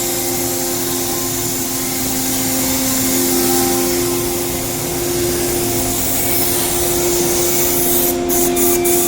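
CNC router spindle running steadily while cutting wood: a constant whine over a hiss, its tone shifting slightly about three seconds in.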